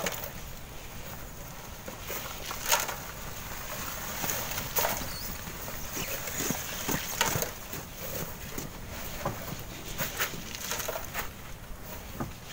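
Irregular knocks and scrapes of manual sand-mining work with shovels and steel wheelbarrows, a sharp one every second or two, over a faint steady hiss.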